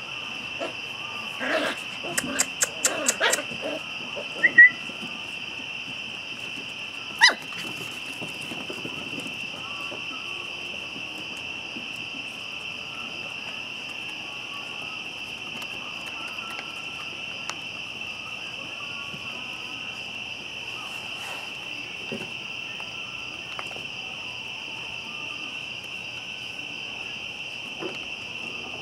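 Crickets trilling steadily and high-pitched in a night-time insect chorus. In the first eight seconds a run of clicks and two short, sharp squeaks break in over it.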